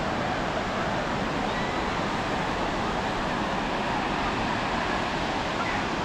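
Steady wash of noise from surf mixed with road traffic, with no single sound standing out.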